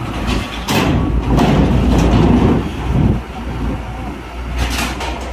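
Heavy cargo truck's diesel engine running low as it rolls slowly up a steel ferry ramp, with sharp clanks and rattles as the wheels cross the ramp's metal plates.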